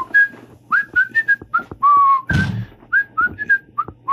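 A man whistling a tune through pursed lips as stand-in intermission music: a run of short notes sliding up and down. There is a loud breathy burst about two seconds in.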